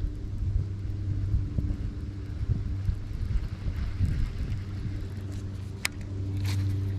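A steady, low motor-vehicle engine drone with a rough, rumbling edge, and a couple of sharp clicks near the end.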